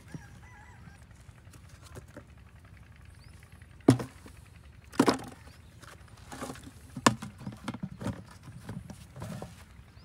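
Handling sounds of a plastic bucket, its lid and wooden sticks being moved about on dry sandy ground: a few sharp knocks, the loudest about four, five and seven seconds in, then smaller scuffs and knocks.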